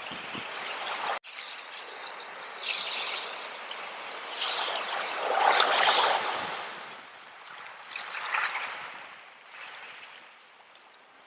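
Sea water washing over shells, a hiss that swells and fades with each wave: three surges, the loudest about halfway through. The sound cuts out for an instant about a second in.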